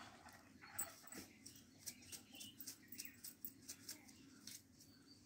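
Near silence, with faint light ticks and taps as salt is shaken from a small plastic bottle over a bowl of mixed vegetables.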